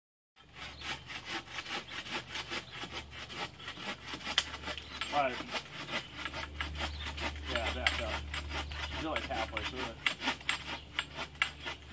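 Hand-powered pole saw cutting into an overhead tree branch, its blade rasping through the wood in quick, even back-and-forth strokes.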